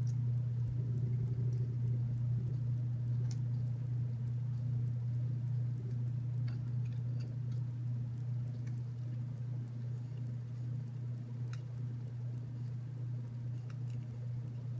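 Scattered small clicks and ticks of screws, nuts and plastic TurtleBot3 waffle plates being handled and screwed together with a small screwdriver, over a steady low hum.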